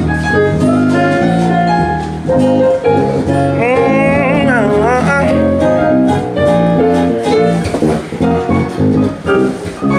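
Live band music: a Nord Electro 3 stage keyboard with electric bass and acoustic guitar playing together, with a steady bass line under chord and melody notes. Around four seconds in, a short sliding, wavering melody line rises over the band for about a second.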